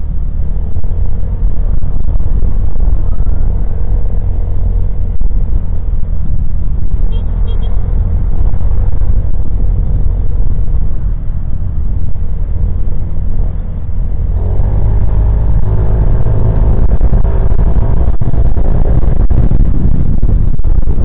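Motorcycle riding in traffic: a heavy wind rumble on the mount-camera's microphone over the engine running. About 14 seconds in, the engine note rises and holds as the bike speeds up.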